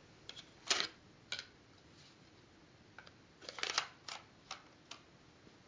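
About ten light, quiet plastic clicks and taps, scattered with a quick cluster a little past the middle: a View-Master reel being handled and set into the viewer.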